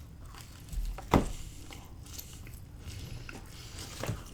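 A person eating pizza close to the microphone: a sharp bite or click about a second in, then faint chewing and small mouth sounds.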